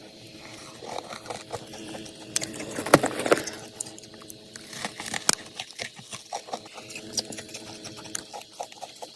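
Humidifier ice being bitten and chewed close to the mic. Sharp crunching bites come about 3 s and again about 5.3 s in, with quick fine crackling and crunching in between.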